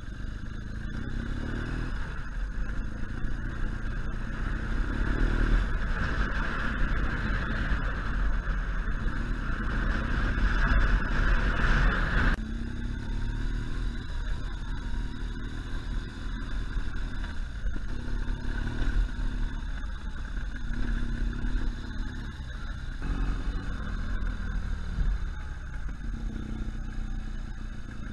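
BMW R1200 GS Adventure boxer-twin engine running as the motorcycle is ridden off-road over rough grassland, its pitch rising and falling with the throttle. A loud rushing noise over the engine drops away abruptly about twelve seconds in.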